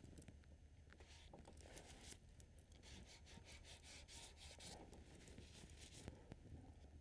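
Faint, scratchy rubbing strokes of paint being worked on a canvas, repeated several times over a few seconds.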